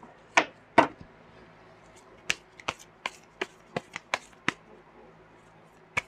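A deck of oracle cards being shuffled by hand, with sharp card clacks: two in the first second, then after a pause a run of seven at about three a second.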